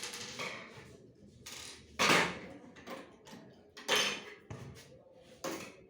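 Printer parts being handled during a repair: four separate knocking, scraping clatters about every two seconds, the loudest about two seconds in.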